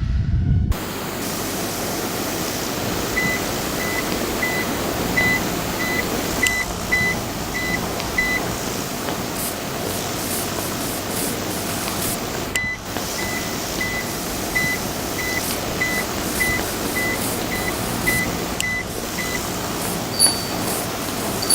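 A vehicle's reversing warning beeper, short high beeps about twice a second in two long runs with a pause between, over a steady engine-and-traffic noise.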